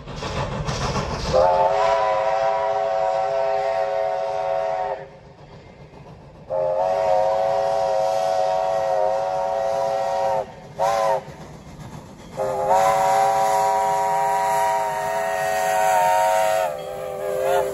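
Narrow-gauge steam locomotive whistle, a multi-note chime, blowing two long blasts, one short and one long: the standard grade-crossing signal. A rushing noise fills the first second or so before the first blast.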